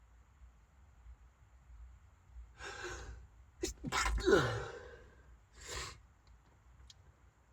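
A person sneezing in a car as part of a sneezing fit. A noisy gasping in-breath comes first, then a loud sneeze about four seconds in whose voice drops in pitch, then a short breath out.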